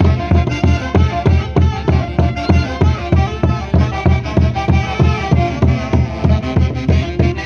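Live Andean orchestra playing Santiago festival music, with melodic instrument lines over a steady, fast low drum beat.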